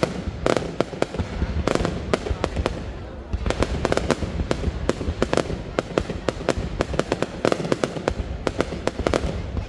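Fireworks display: rapid, irregular bangs and crackles of shells bursting, several a second.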